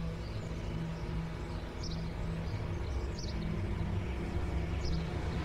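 Quiet film-scene ambience: a low steady hum with three short, high bird chirps spaced about a second and a half apart.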